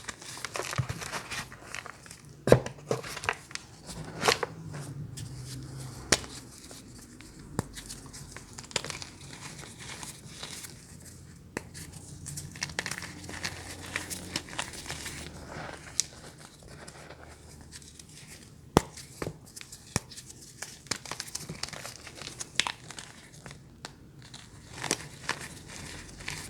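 Close-miked crinkling and crackling of snack wrappers being handled, with irregular sharp clicks and a few louder snaps, the loudest about two and a half seconds in.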